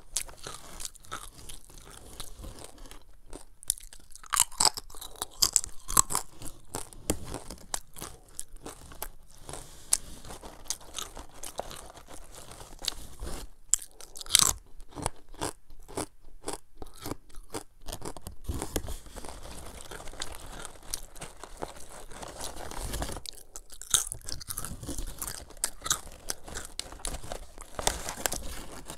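Close-up biting and chewing of crunchy cassava chips (sea salt cassava strips): a steady run of sharp, irregular crunches, thickest in clusters as each new chip is bitten.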